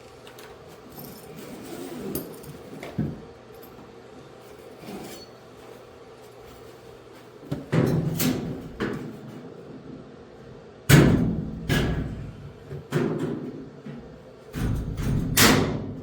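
Irregular knocks and clunks from a coin-operated washer's cabinet being handled and taken apart, with several loud hits in the second half.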